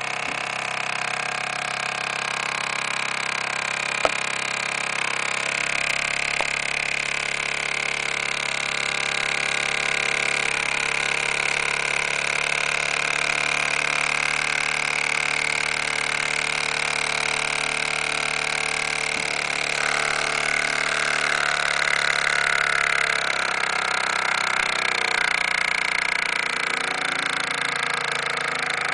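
Bowman M180 model steam engine running at a steady speed, a continuous whirring hum with a brief click about four seconds in. Its pitch drops slightly about twenty seconds in.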